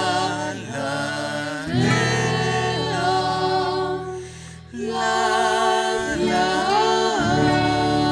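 Music with sung voices holding long, gliding notes over a sustained low note and no clear words. It drops away briefly about four and a half seconds in, then comes back.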